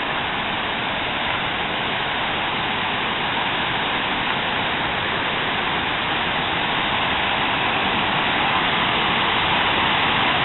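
Waterfall and river cascade rushing over rock ledges: a steady wash of falling water that slowly gets louder as the microphone nears the falls.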